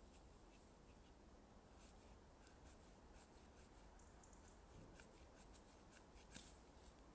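Faint crackling and rustling of dry leaves and fine twigs being crumpled and broken by hand, in many small snaps that come thicker from about two seconds in.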